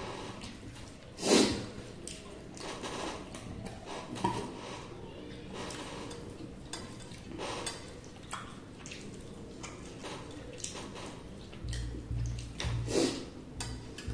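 Eating sounds from two people eating rice and fish curry with their fingers off steel plates: soft squishing and scraping of food against the metal and chewing, in irregular short sounds, with a sharper, louder one about a second in.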